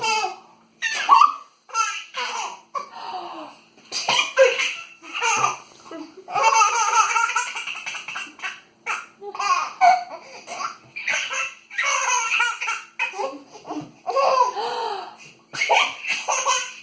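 A baby laughing in repeated fits of high-pitched belly laughter, set off by his mother's sneezes.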